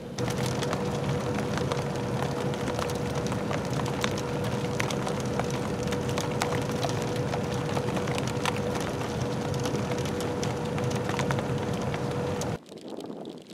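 Car cabin noise in a snowfall, with snow blowing in onto the driver: a steady rush with a low rumble and a thin steady whine, peppered with light scattered ticks. It cuts off suddenly near the end.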